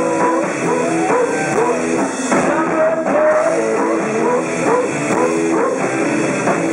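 A live rock band playing loudly: electric guitar over bass guitar and drums, with bending guitar-like notes and a steady beat.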